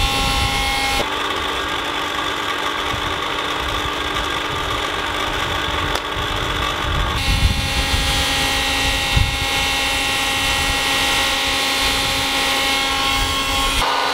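A steady, motor-like whirring drone with a high whine. Its tone shifts abruptly about a second in, again about seven seconds in, and near the end, with a couple of brief thumps midway.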